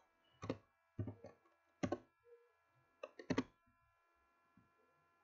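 A handful of sharp knocks at uneven spacing, the last two close together, over a faint steady hum.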